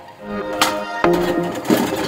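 Music with steady pitched notes that change every half second or so, and a few sharp percussive hits.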